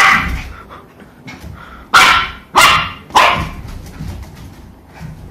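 Two-month-old Shiba Inu puppy barking in sharp, high yaps: one at the start, then three in quick succession about two seconds in, with fainter yelps between.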